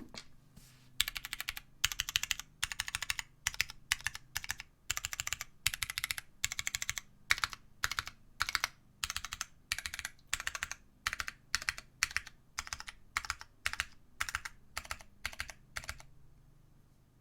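Typing on a mechanical keyboard with vintage Cherry MX Brown switches on a carbon-fibre plate, under GMK keycaps. The keystroke clatter comes in quick bursts of many keys and stops shortly before the end.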